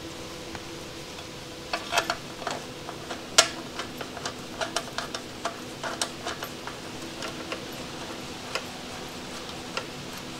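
Irregular small clicks and taps of hands fitting a plastic fuel hose into place on a motorcycle, busiest in the middle and thinning out toward the end, over a steady background hum.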